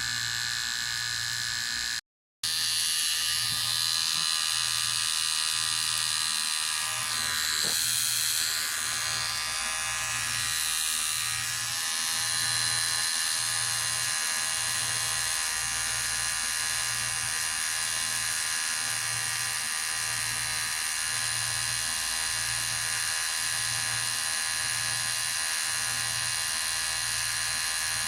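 Electric hair clippers running steadily, with a brief dropout to silence about two seconds in.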